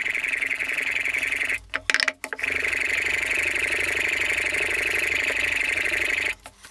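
A steel plane iron clamped in a Veritas Mk II roller honing guide, stroked back and forth on a wet 6000-grit water stone, giving a steady scraping hiss. It pauses briefly with a few clicks about two seconds in, then carries on and stops shortly before the end.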